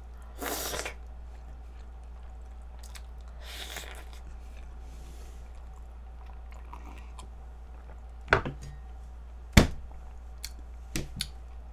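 Close-up eating sounds: a wet bite into a milk-dipped pastry about half a second in, another noisy mouthful a few seconds later, and soft chewing. Then a few sharp knocks, the loudest near ten seconds in, as the glass of milk is set down on the wooden tray.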